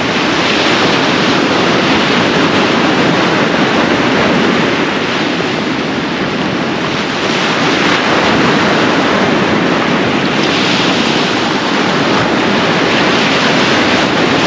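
Sea surf breaking and washing up the beach in a steady wash of noise, with wind rumbling on the microphone.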